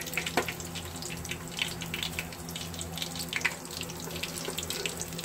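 Paneer nuggets deep-frying in hot oil: a steady sizzle thick with small crackles and pops, over a faint low hum.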